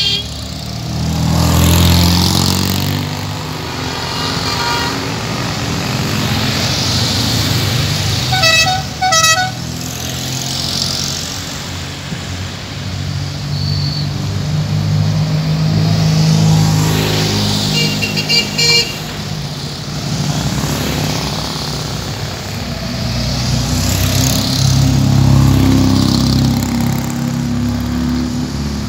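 A line of small cars, classic Fiat 500s among them, driving past one after another, with engine and tyre noise swelling as each one goes by. A car horn gives a quick string of short toots about a third of the way in, and a higher-pitched horn beeps several times in quick succession a little past the middle.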